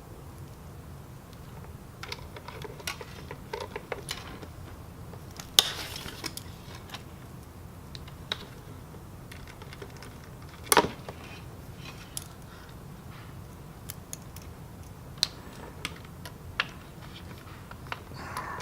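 Small hand screwdriver turning screws into a laptop hard drive's bracket: scattered light metallic clicks and taps, with two sharper clicks about five and a half and eleven seconds in.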